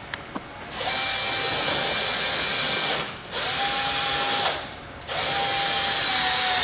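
Screw gun driving a screw into the railing, run in three bursts with short pauses between, each with a steady motor whine.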